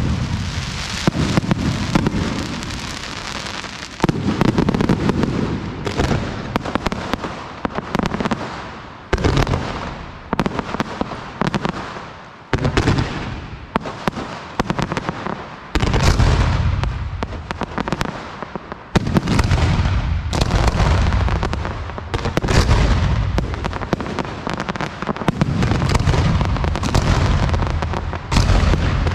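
Aerial fireworks shells bursting in quick succession, a loud bang every second or two, each trailing off in a deep rumbling echo.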